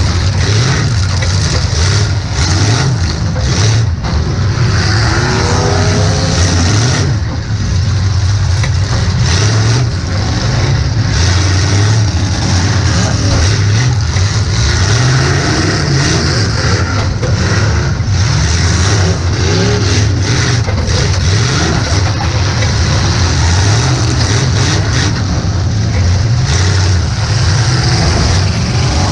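A demolition derby car's engine running hard and revving up and down, heard from inside the car's cabin. Short bangs and crunches of impacts recur throughout.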